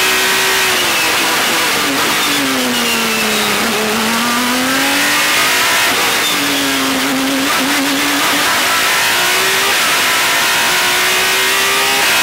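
Onboard sound of a World Series by Renault single-seater's 3.5-litre V6 at racing speed. The engine note falls as the car brakes and downshifts about a second in, climbs again out of the corner, dips a second time around six seconds in, then rises steadily under full acceleration near the end.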